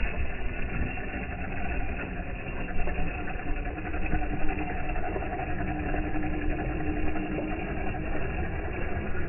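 Radio-controlled scale crawler truck's electric motor and gears whining as it crawls through loose beach sand, over a steady low rumble. The whine grows clearer partway through.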